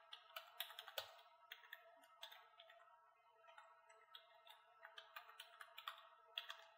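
Faint, irregular keystrokes on a computer keyboard, typing in short runs.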